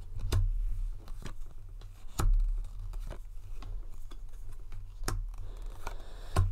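Tarot cards being handled and shuffled: irregular light clicks and snaps of the cards, with a few soft thumps as they are tapped against the table, over a steady low hum.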